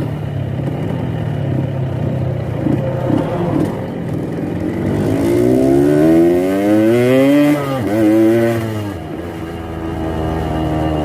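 Yamaha RX-King's single-cylinder two-stroke engine, set up for a deep 'ngorok' (snoring) exhaust note, idling, then revved in a slow climb, blipped once more and let fall back to idle.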